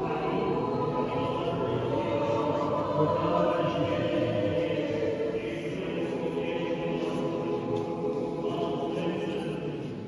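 Orthodox church choir singing a liturgical chant in long held notes, fading out at the end.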